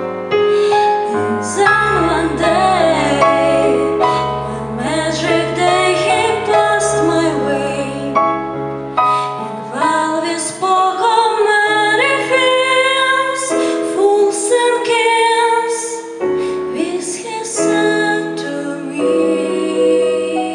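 A young woman singing solo into a handheld microphone through the PA, with vibrato on held notes, over an instrumental accompaniment of sustained chords and a low bass line that drops out about halfway through.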